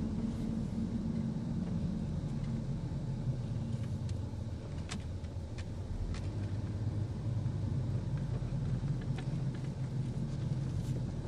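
In-cab driving noise of a 2016 Ram Promaster City van: a steady low engine and road hum, with a few faint clicks.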